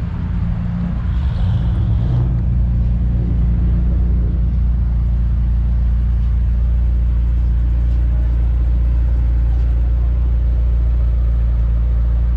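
Car engine running steadily with a deep low rumble.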